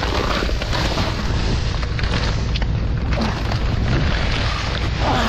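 Plastic salt bags and plastic wrapping rustling and crinkling as hands rummage through them, over a steady low rumble.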